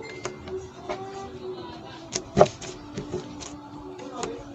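Slime worked by hand, making a run of irregular sharp clicks and pops; the loudest pop comes about two and a half seconds in.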